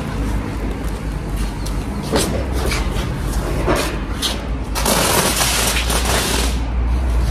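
Aluminium foil wrapping on insulation boards crinkling and rustling as it is handled, in short strokes and then a longer, louder rustle about five seconds in, over a steady low hum.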